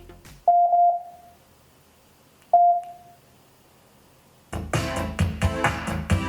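Electronic beep tones from a soundbar: a short run of beeps, then a single beep about two seconds later. These are typical of its Bluetooth pairing and connection prompts. Music with a strong beat and heavy bass starts about four and a half seconds in.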